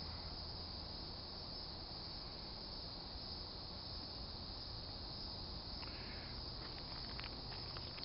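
Steady high-pitched insect chorus, with a few faint clicks near the end.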